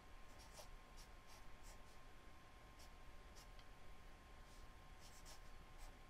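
Black felt-tip marker writing on spiral-notebook paper: faint, short scratchy strokes at irregular intervals as numbers are written.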